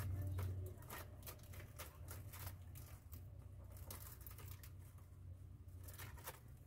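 Palm strips rustling and crackling as they are pulled tight one by one through a woven chair cover: an irregular scatter of short, crisp clicks.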